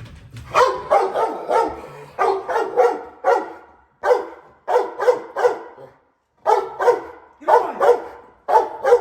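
Young female dog barking repeatedly in quick runs of two to four barks, with short pauses between the runs.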